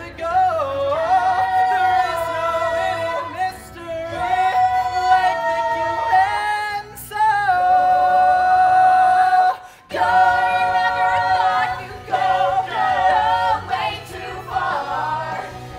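Musical-theatre ensemble singing a show tune with long held notes over the accompaniment, breaking off briefly about ten seconds in.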